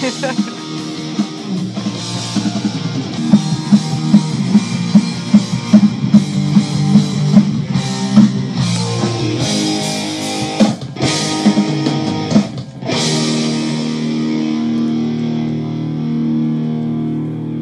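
Rock track with distorted electric baritone guitar power chords over drums, pulsing about twice a second. A few sharp hits come past the middle, then a chord is held out to near the end.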